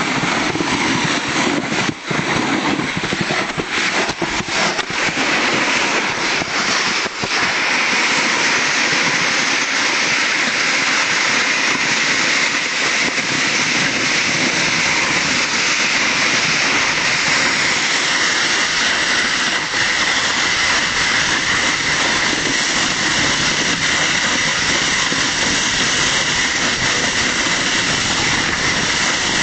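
Plastic snow bob sliding fast over packed snow and ice, a steady loud scraping hiss of the runners on the snow. Scrapes and knocks come in the first several seconds, as the rider's hands push at the snow, before the slide settles into an even rush.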